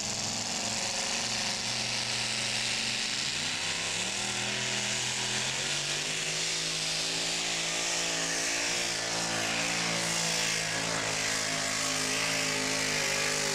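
Supercharged engine of a two-wheel-drive pulling truck running at full throttle as it drags a weight-transfer sled. Its pitch climbs about three seconds in, then holds steady under the load.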